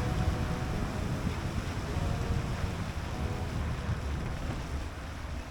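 A steady low rumbling noise with faint sustained music tones over it, all slowly fading out.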